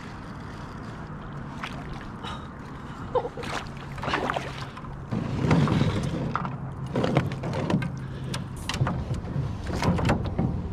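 Scattered knocks, taps and clatter of gear and paddles being moved about inside a canoe, over a faint steady low hum.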